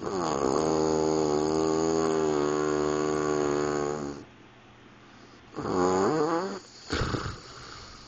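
A sleeping man snoring with an odd, pitched, almost voice-like tone: one long snore of about four seconds that dips in pitch at its start and then holds steady, a shorter one near six seconds that rises and falls in pitch, and a brief third one near the end.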